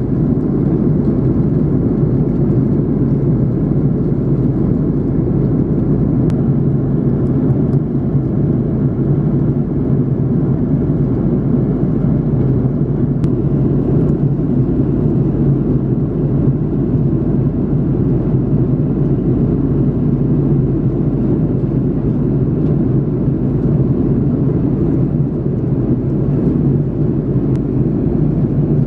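Steady cabin noise of an Airbus A330-300 in flight: an even low rush of airflow and its two Pratt & Whitney PW4168A engines, with no change in pitch or level.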